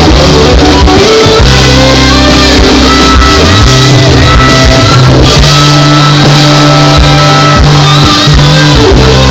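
Live worship band playing loudly, with guitar in the mix and held chords that change every second or so.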